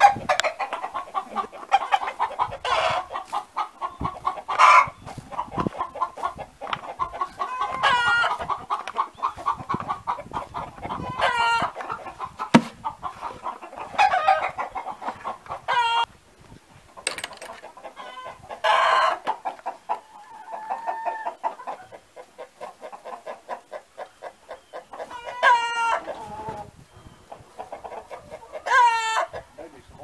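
A flock of hens clucking, rapid and steady, with louder drawn-out calls breaking in every few seconds.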